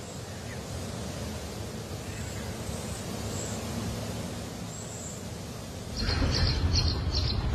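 Steady outdoor background noise with a few faint, short, high chirps like distant birds. About six seconds in, a louder rhythmic run of high ticks over a low rumble begins.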